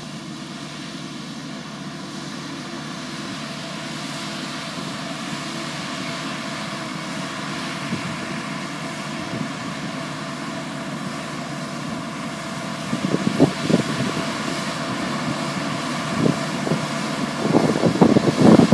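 Tractor-drawn strawberry bug vacuum running: a steady drone of the tractor engine and the vacuum's fan, growing gradually louder as it approaches. From a little past the middle, irregular gusts of wind buffet the microphone.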